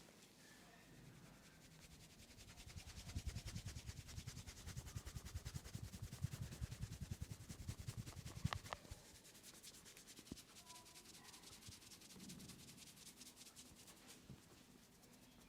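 Faint, quick rhythmic rubbing on hair and scalp during a head massage. The strokes are strongest from a few seconds in until about two-thirds through, then softer. A single sharp click comes just before they ease off.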